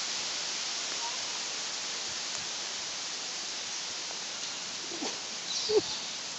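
Steady rushing hiss of wind through the surrounding foliage, with a couple of brief voice-like sounds near the end.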